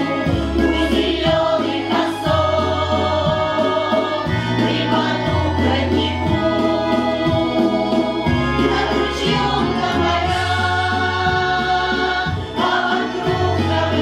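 Women's folk vocal ensemble singing a Russian song together, holding long notes, over an instrumental accompaniment with a bass line that moves about once a second.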